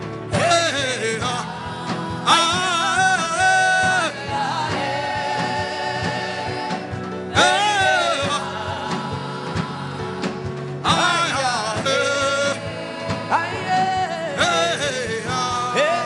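Gospel worship song: a voice sings long, sliding, ornamented phrases with short pauses between them, over sustained accompaniment and a light steady beat.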